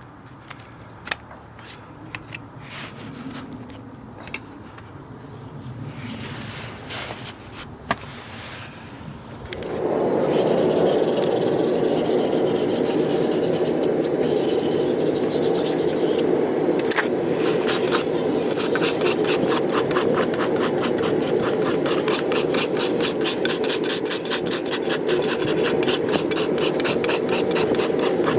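Horse's hoof being worked with a farrier's rasp: a loud, continuous scraping begins about a third of the way in and settles into fast, even strokes. Before it, only a few light clicks.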